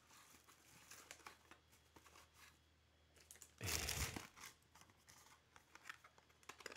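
Faint crinkling and handling of a trading-card box's plastic wrapper, with light ticks and crackles throughout and one louder rustle about three and a half seconds in.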